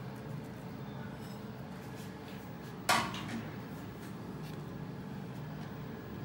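One sharp clink of dishes knocking together about three seconds in, ringing briefly, over a low steady hum.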